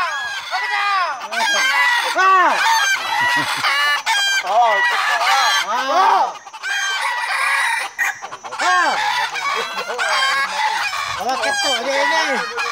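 Several roosters crowing again and again, their crows overlapping at different pitches with hardly a pause.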